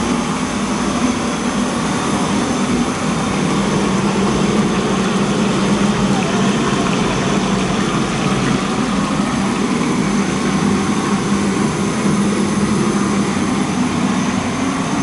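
Steady, loud machine roar of a commercial kitchen's lit gas wok range and its blowers, with a low steady hum underneath.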